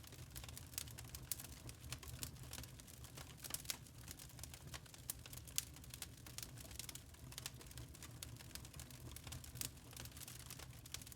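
Wood fire crackling in a fireplace: irregular sharp snaps and pops from the burning logs over a low, steady rumble.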